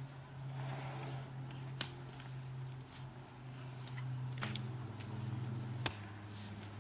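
A chainsaw engine idling with a low, steady hum that dips slightly in pitch twice, under a few sharp knocks and clicks as a freshly milled ash slab is lifted off the log, carried and set down.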